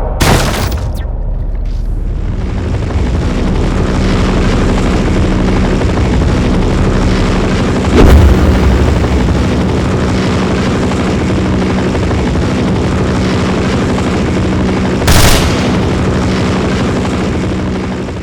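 Designed action-film sound effects: a steady, dense rumble with a low hum under it. A heavy boom comes about eight seconds in and a short, sharp blast about fifteen seconds in, and the rumble fades out at the end.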